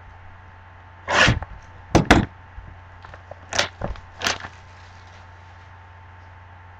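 A cardboard trading-card box handled on a table. There is a short scrape about a second in, then two sharp knocks in quick succession, and three more short knocks over the next two seconds.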